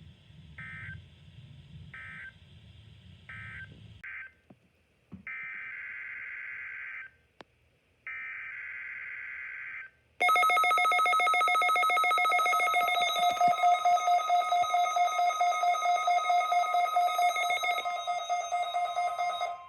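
Emergency Alert System digital data bursts: three short end-of-message bursts over radio static, then longer header bursts. About ten seconds in, a loud, rapidly pulsing electronic alert tone with several pitches sounding together begins, and it changes near the end.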